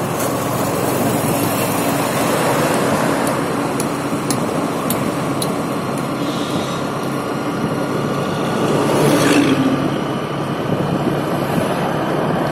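Steady road noise from riding a motor scooter: its small engine and the rush of the road blended into an even noise. A few faint high ticks come about twice a second a few seconds in, and the noise swells for about a second near three-quarters of the way through.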